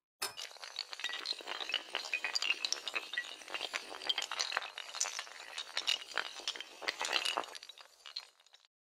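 A long chain of dominoes toppling: a dense run of light clicks and clinks that starts suddenly and thins out near the end.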